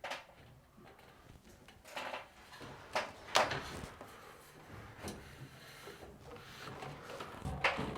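Scattered knocks, taps and scraping from building materials being handled during a metal ceiling install in a small room. The loudest knock comes about three and a half seconds in, with another near the end.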